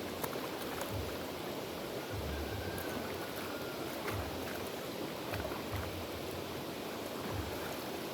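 River water flowing steadily, an even rushing noise with a few faint low bumps now and then.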